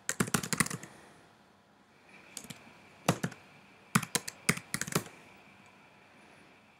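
Typing on a computer keyboard: a quick run of keystrokes at the start, then a few single keys and another run about four seconds in.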